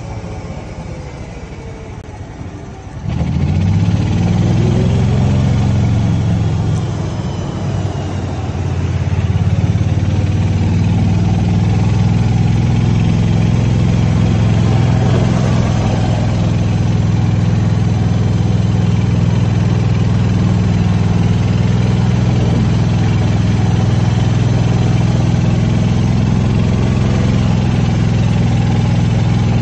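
Golf cart running along a paved path, its motor giving a steady low hum that gets much louder about three seconds in.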